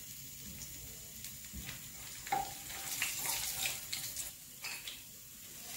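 Faint sizzle and crackle of hot frying oil, a steady soft hiss with scattered small pops.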